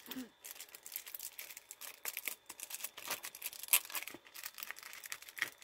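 Plastic packaging crinkling and rustling as it is handled, a dense run of irregular small crackles and clicks.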